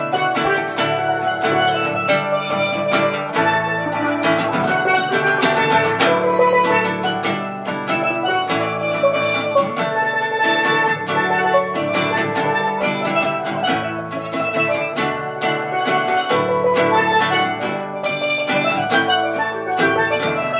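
Steelpan played live in a quick run of struck, ringing notes, with an acoustic guitar accompanying underneath.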